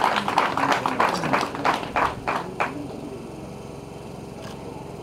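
Several people clapping together in a quick rhythm of about three claps a second, which stops about two and a half seconds in, leaving faint background noise.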